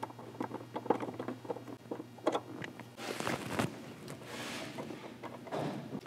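Socket wrench on a long extension running the factory nuts back down onto the throttle pedal spacer's studs. Light, irregular metal clicks and rattles, with a rougher scraping stretch about three seconds in.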